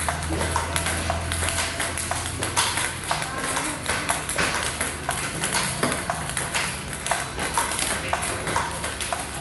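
Table tennis balls clicking off rubber paddles and the table top in a fast, even back-and-forth rally, with a low steady hum underneath.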